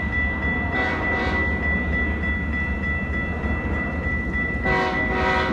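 A freight train running past with a steady low rumble and a steady high tone. Over it, a multi-note air horn gives two short blasts about a second in, and two more near the end.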